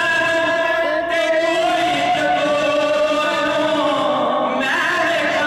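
A man reciting a naat, an Urdu devotional poem, sung unaccompanied into a microphone in long held notes that glide slowly in pitch. A new, higher phrase begins about four and a half seconds in.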